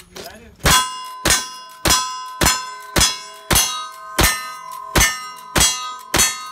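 Ten rifle shots from a lever-action rifle, fired in a quick steady string just under two a second with a slightly longer pause before the last three, each answered by the ring of a steel target being hit. The ringing carries on between shots.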